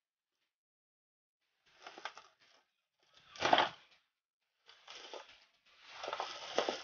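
Bubble wrap crinkling and rustling in separate bursts as it is pulled and torn off a small box, starting after about a second and a half of silence, with the loudest crackle about halfway through.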